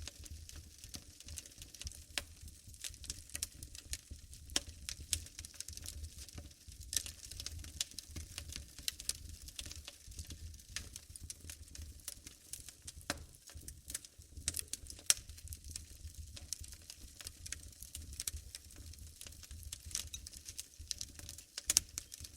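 Wood fire burning in a fireplace, crackling with frequent irregular sharp pops and snaps over a low rumble of the flames.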